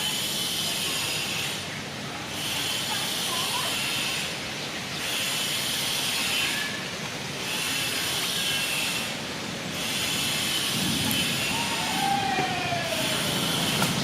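Steady hiss of wind with a high-pitched drone that swells and fades about every two and a half seconds. A short call glides down in pitch about eleven seconds in.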